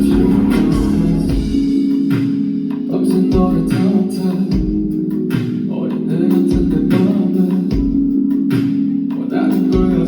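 Live band music playing loudly, with guitar and bass over a steady beat.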